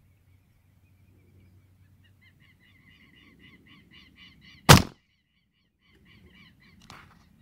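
A single sharp shot from a Jade Pro Nitro 5.5 mm gas-piston air rifle about two-thirds of the way through, the loudest sound, over a rapid run of high chirping notes that starts about two seconds in.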